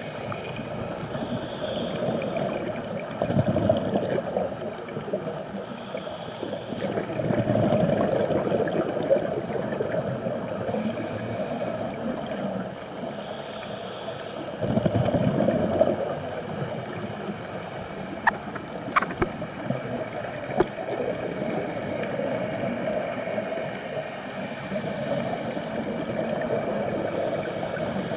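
Underwater recording of a scuba diver breathing through a regulator: a brief hiss on each inhale, then a longer, louder rush of exhaled bubbles, repeating every five to seven seconds.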